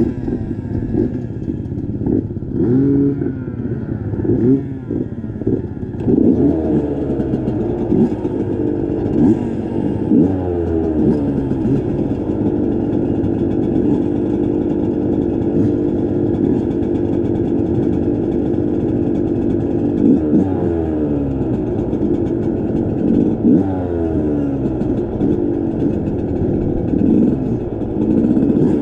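Motorcycle engine being ridden, its pitch repeatedly climbing and dropping with throttle and gear changes, then holding a steady pitch for several seconds in the middle before climbing and dropping again.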